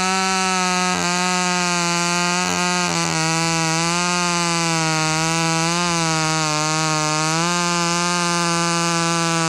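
Vintage Jonsered 361 two-stroke chainsaw running very fast while cutting through a box elder log with a 14-inch bar and quarter-inch chain. Its high engine note is steady, sags a little under load a few times, and climbs back about three-quarters of the way in.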